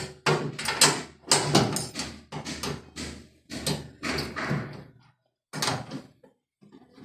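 Repeated knocks and rattles from a washing machine's cabinet and levelling feet as the machine is shifted and rocked while it is being levelled, with short pauses near the end.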